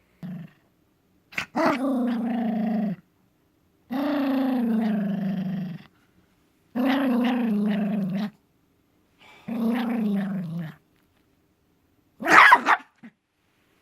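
Black toy poodle growling in four long drawn-out growls, each about a second and a half and sliding slightly down in pitch, then one short, loud burst near the end.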